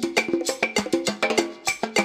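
Upbeat background music: a quick, even rhythm of clicky percussion with short pitched notes.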